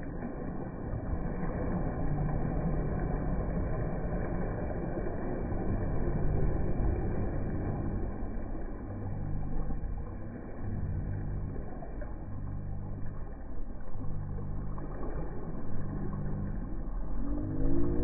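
Jet ski engine running under way, with a steady rush of water and wind noise over it.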